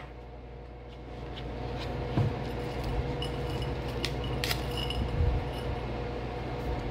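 Paper wrapper of a cornstarch package being torn open and crinkled by hand, with a few short crackles and taps, over a steady low hum.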